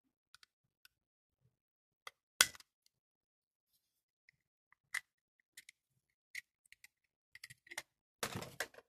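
Plastic clicks and taps from handling a Trodat 4810 Printy self-inking date stamp: one sharp click about two and a half seconds in, a few lighter clicks, then a quick run of clattering near the end.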